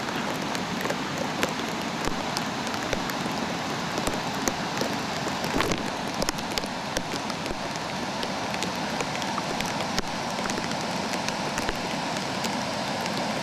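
Steady rain falling, with many sharp, irregular clicks of drops striking close to the microphone.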